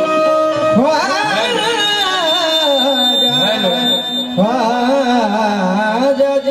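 Qawwali singing with harmonium: a singer draws out long, ornamented vocal phrases whose pitch waves up and down, in two phrases, the first starting about a second in and the second about halfway, over the harmonium's steady held notes.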